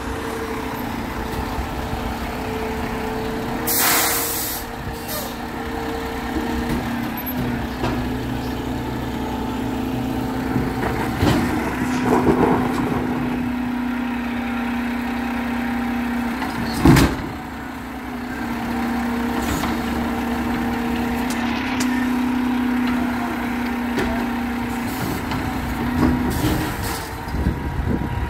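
Garbage truck engine running steadily with a humming tone, a short air brake hiss about four seconds in, and a single loud bang a little past halfway.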